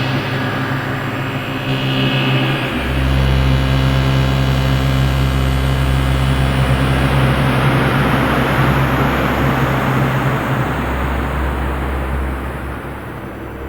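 Dark ambient drone from a modular synth patch: low sustained tones layered under a noisy, rumbling wash. A deeper bass drone swells in about three seconds in, and the sound thins out toward the end.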